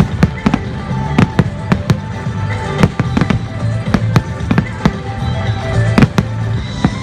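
Aerial fireworks shells bursting in quick succession, many sharp bangs about two to three a second, with the loudest near the start and about six seconds in. Music plays steadily underneath.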